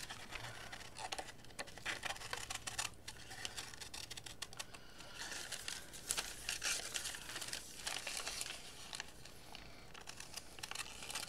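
Wax paper with melted crayon sealed inside crinkling and rustling as it is handled and peeled apart, with scissors snipping through it; irregular short rustles and snips.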